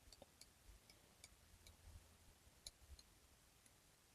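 Near silence with faint, scattered light ticks and clicks, about a dozen, of a pencil and protractor being handled on paper.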